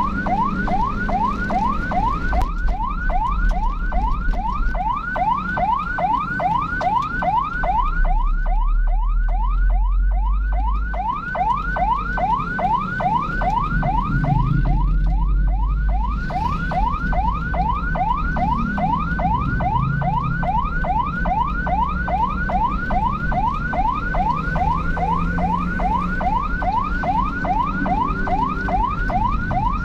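Emergency vehicle siren in a fast yelp, repeating a quick rising sweep about two to three times a second without a break, over the low rumble of the vehicle moving.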